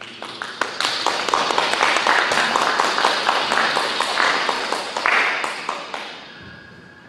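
Audience applauding: the clapping builds within the first second, holds, and dies away about six seconds in.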